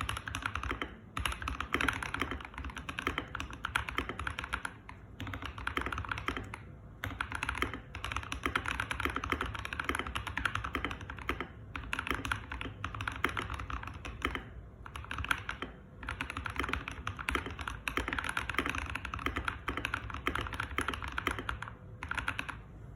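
Keychron K2 V2 mechanical keyboard with Boba U4T tactile switches, typed on quickly in runs of a few seconds broken by short pauses.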